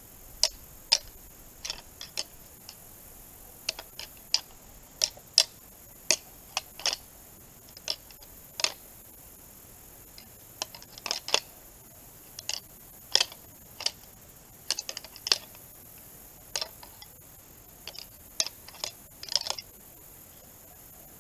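Deer antlers lightly tickled together: irregular sharp clicks of tine on tine, some single and some in quick clusters. It is a soft sparring sequence meant to sound like bucks testing dominance, not a full fight.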